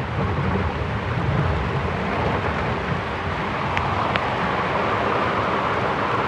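Heavy downpour of rain, heard from a moving golf cart, with a low rumble from the cart and wind on the microphone. Two sharp clicks a little before the four-second mark are raindrops striking the microphone.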